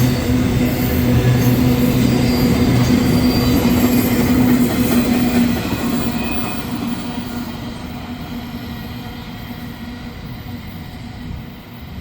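Freight train rolling by on the rails, with a steady low hum over the rumble of the cars. The hum stops about five and a half seconds in, and the noise then falls away steadily.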